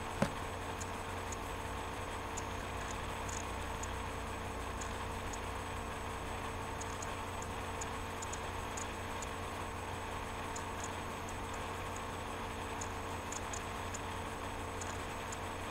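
Steady low electrical hum with faint, irregular small ticks scattered through it.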